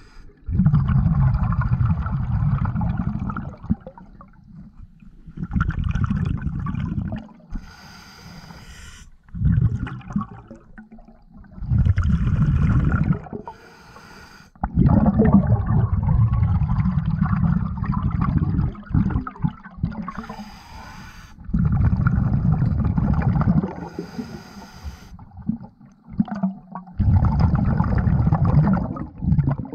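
Diver breathing through a scuba regulator, heard underwater: short hissing inhalations alternate with longer rushes of exhaled bubbles, repeating every few seconds.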